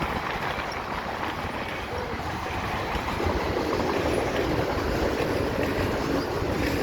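Westbound mixed freight train's cars rolling past below: a steady rumble and rattle of steel wheels on rail that grows a little louder about three seconds in. Wind buffets the microphone.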